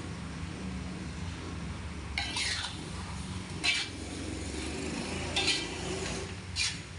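A metal spatula stirring and scraping a soft paste of tempoyak and dried anchovies around a metal wok on a gas stove. There are four short scrapes against the pan in the second half, over a steady low hum.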